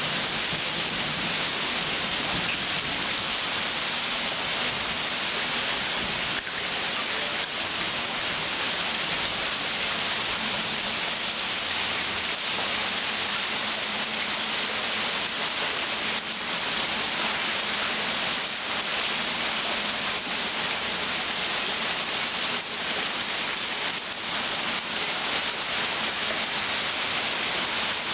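Heavy rain falling steadily into shallow standing floodwater over a concrete driveway, an even splashing hiss.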